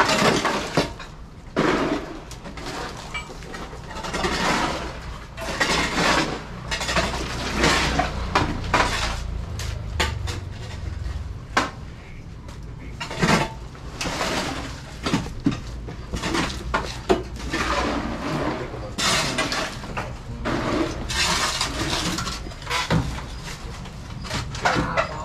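Irregular scraping and clattering of tools working a mix of sand, gravel and cement, many short strokes, over a steady low hum.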